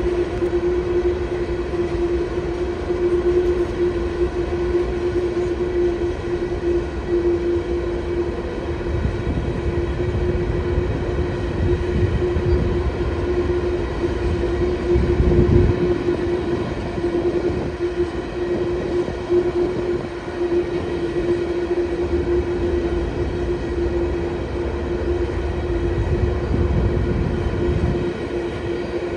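Freight cars of a passing freight train, covered hoppers and gondolas, rolling by with a continuous rumble of wheels on rail. A steady mid-pitched tone runs through it, and the rumble swells briefly about halfway through.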